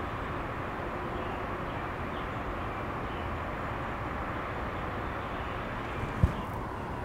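Steady outdoor background noise with no distinct source, and a single short, low thump about six seconds in.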